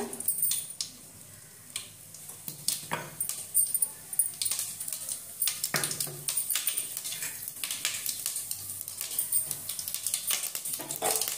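Mustard seeds and dal crackling in hot oil in an aluminium pot, the first stage of a South Indian tempering: irregular sharp pops, several a second, over a faint sizzle.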